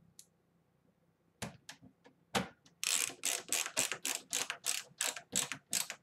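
Ratcheting screwdriver clicking as it drives a Phillips screw into a video card's metal bracket on a desktop case. A few scattered clicks come first, then from about halfway a steady run of about four clicks a second.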